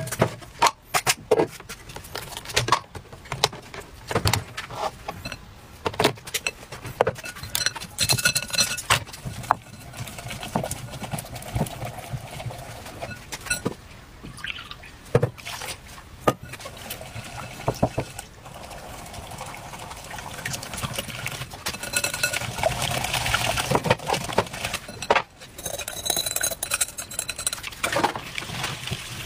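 Batter being mixed in a glass mixing bowl with chopsticks and a wire whisk: many quick clicks and taps of the utensils against the glass. Liquid is poured into the batter partway through.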